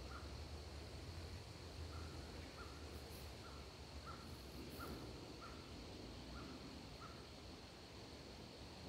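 Faint woodland sounds: an animal's short call repeated every half second to a second, stopping about seven seconds in, over a steady high thin tone and a low rumble.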